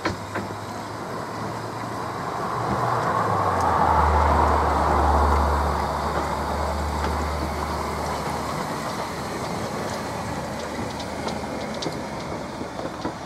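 A Beyer Peacock 0-6-0T narrow-gauge steam tank locomotive passes at slow speed without carriages. Its low drone and hiss grow to their loudest about four seconds in, then fade as it moves away, with a few light clicks near the end.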